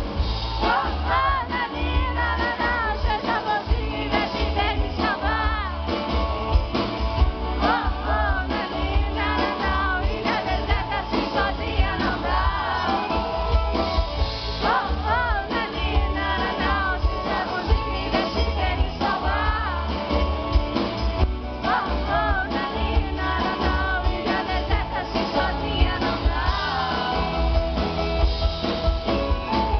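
Live concert music: a band playing with singing over a heavy, steady bass beat.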